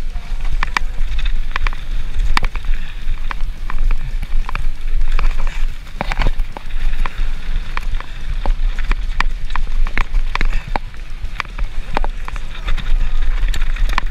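Mountain bike riding fast down a rough trail: tyres crunching over dirt and gravel, and the chain and bike rattling with many sharp, irregular knocks. A heavy wind rumble buffets the action camera's microphone.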